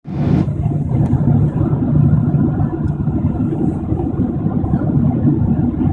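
Steady low rumble inside the cabin of a Boeing 767-400ER airliner on final approach: engine and airflow noise.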